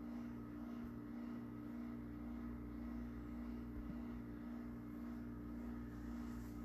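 Steady low hum with a faint, regular slow pulsing beneath it.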